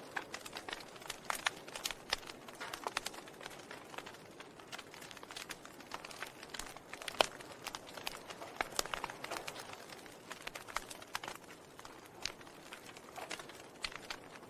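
Wood fire burning in a fireplace: irregular crackles and pops from the logs over a soft hiss, with one sharper pop about seven seconds in.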